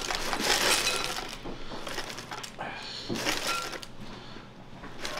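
Dry cereal squares poured from a cardboard box into a glass bowl, a crackly rattle against the glass. It is densest for about the first second and a half, then thins to a lighter patter with a short burst near three seconds.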